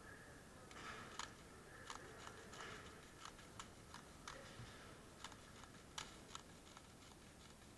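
Near silence with faint, irregular sharp clicks and ticks, about a dozen of them scattered through.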